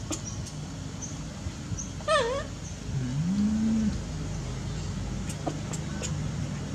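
A short high-pitched animal call about two seconds in that dips and then rises in pitch, over a steady low hum, with a few faint clicks later on.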